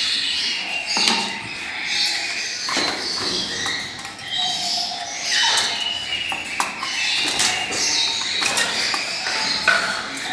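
Small pet parrots chirping and chattering continuously, with many short high calls and scattered sharp clicks.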